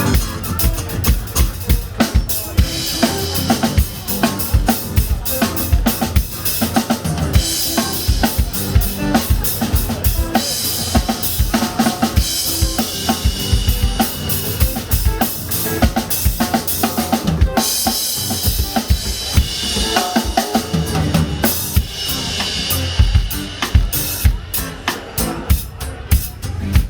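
Live band playing an instrumental groove led by a drum kit: a steady kick and snare beat with rimshots, and repeated stretches of cymbal wash over it.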